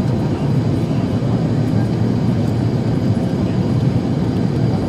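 Steady low rumble of cabin noise inside an Airbus A380-861 airliner on approach with its flaps extended: engine and airflow noise carried through the fuselage, with no distinct tones.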